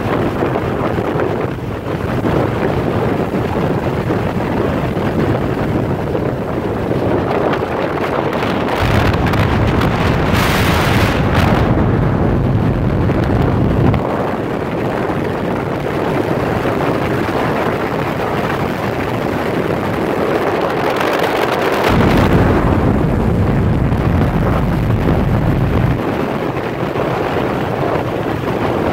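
Wind rushing over the microphone of a motorcycle at road speed, with the motorcycle's engine and tyre noise underneath. The wind buffeting swells into a heavier low rumble twice, from about nine to fourteen seconds in and again from about twenty-two to twenty-six seconds.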